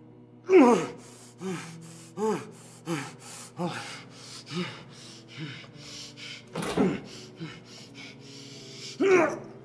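A person gasping for breath in short, rapid breaths, with brief whimpering moans that rise and fall in pitch, over a low sustained music drone.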